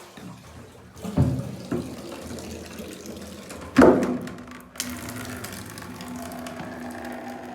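Water running and splashing, with two louder sudden gushes or knocks, about a second in and just before the middle, then a steadier flow with a low hum in the second half.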